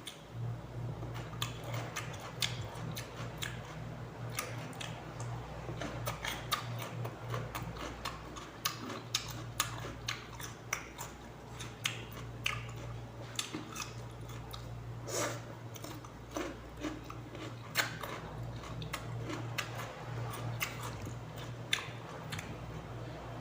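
Close-up chewing and biting of raw cucumber, many short crisp crunches throughout, over a steady low hum.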